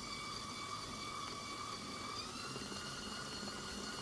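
KitchenAid stand mixer running its wire whisk through buttercream frosting, a steady motor whine that steps up in pitch about two seconds in.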